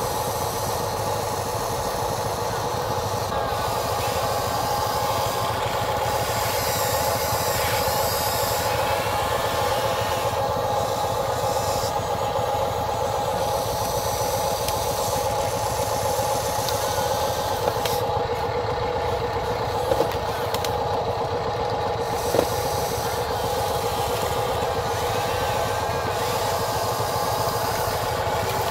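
Huina 580 RC excavator's electric motors and gearboxes whining steadily as the boom, arm, bucket and turntable work, with a couple of sharp clicks about two-thirds of the way through.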